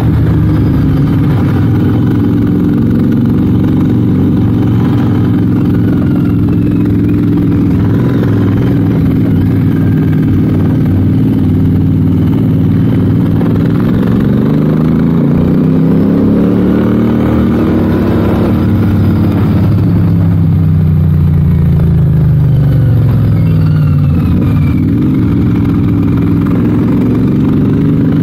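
Royal Enfield 650 parallel-twin motorcycle engine running under way, heard from the rider's seat. Its note holds steady, drops and climbs again about halfway through, then dips once more near the end with changes in throttle.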